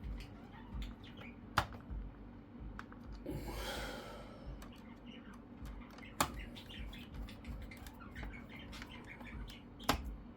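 Small screws being driven into a laptop's plastic base with a screwdriver: three sharp clicks and a brief scrape, with birds chirping in the background.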